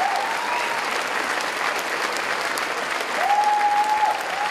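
Audience applauding steadily. A long held high note rises over the clapping twice in the second half.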